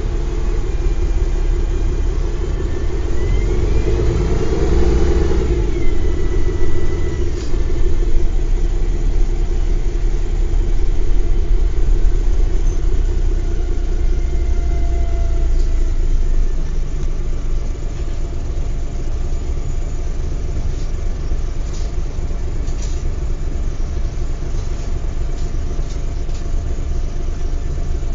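Mercedes-Benz O405 bus's diesel engine running with a low rumble. A whine rises in pitch about three to five seconds in, then the engine settles to a steadier, slightly quieter run after about seventeen seconds.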